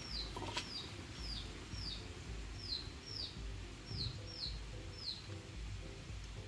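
A small bird chirping repeatedly: a string of short, high, downward-sliding chirps, often in pairs about half a second apart.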